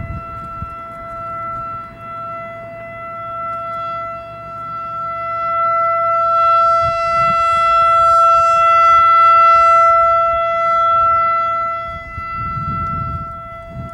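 ACA Alertronic AR-1600 electronic outdoor warning siren sounding a steady, single-pitch tone during its monthly test, growing louder toward the middle and easing back near the end.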